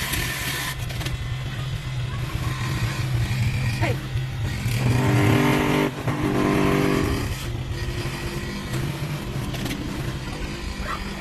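A motor running steadily with a low hum, growing louder in two stretches of about a second and a half each, around the middle.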